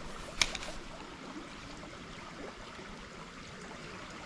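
Steady rush of a small, fast-flowing stream. A single sharp click sounds about half a second in.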